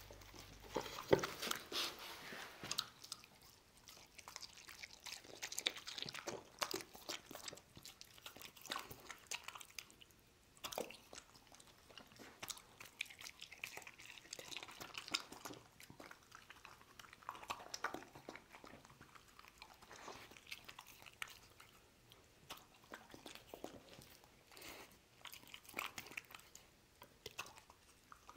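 A dog chewing and crunching mouthfuls of chicken and vegetables from a bowl of chicken soup, with irregular wet bites and crunches.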